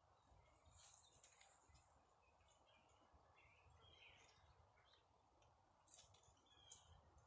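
Near silence: faint outdoor ambience with scattered soft bird chirps and a few brief rustles.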